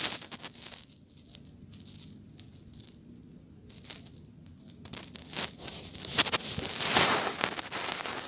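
Rustling and crackling noise with scattered clicks, louder at the start and again about six to seven and a half seconds in.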